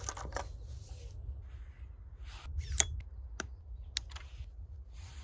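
A series of sharp clicks and short rustling noises over a steady low rumble.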